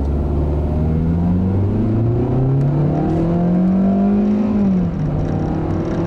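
2014 Hyundai Accent's 1.6-litre four-cylinder engine heard from inside the cabin, pulling under acceleration with its pitch rising steadily. About five seconds in, the pitch drops smoothly as the transmission shifts up a gear, then holds steady.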